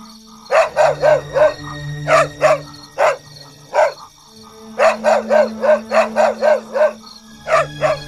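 A dog barking repeatedly in quick runs of several barks, over steady background music.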